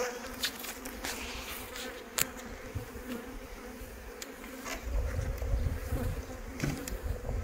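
Honeybees buzzing steadily around open hives, a continuous humming drone, with a few sharp knocks and a low rumble from about five seconds in.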